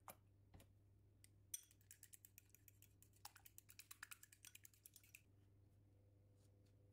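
A metal fork clinking rapidly against a small glass bowl as egg yolk and milk are beaten together, for about four seconds. It follows a couple of single taps.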